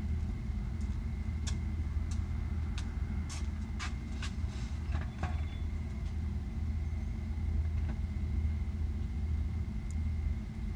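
Steady low outdoor rumble, with a handful of faint short clicks between about one and a half and five seconds in.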